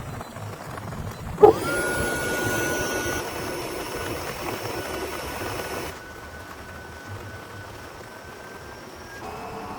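Small electric air pump, of the kind used to inflate an air tent, switching on about a second and a half in with a sharp start and a quickly rising whine, then running steadily. About six seconds in it drops to a quieter run with a fainter whine.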